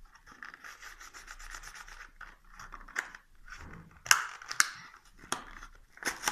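A toy car's cardboard-and-plastic blister package being torn open by hand: a quick scratchy rubbing and scraping for about two seconds, then a handful of sharp cracks and snaps as the plastic bubble is worked loose, the loudest about four seconds in.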